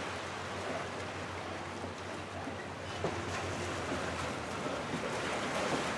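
Steady outdoor wash of wind and water noise on open water, with a low steady hum underneath.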